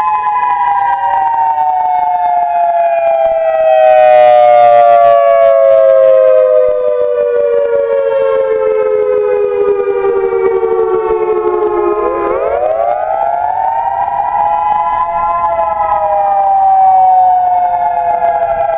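EOWS-612 electronic outdoor tornado warning siren sounding a wail during its test: a chord of tones that slides slowly down in pitch for about twelve seconds, sweeps quickly back up, holds briefly and starts to fall again. A brief low hum sits underneath about four seconds in.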